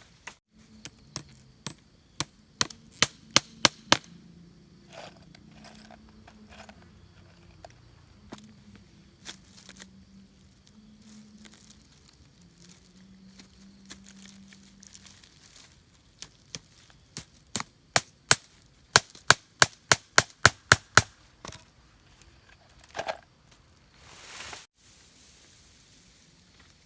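Sharp, loud strikes, like chopping blows, in two quick runs of several blows each at about three to four a second, with a few single strikes between them and a short swishing sound near the end.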